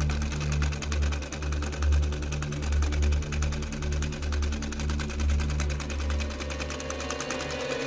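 Treadle sewing machine running steadily, its needle and mechanism clattering in a fast, even rhythm.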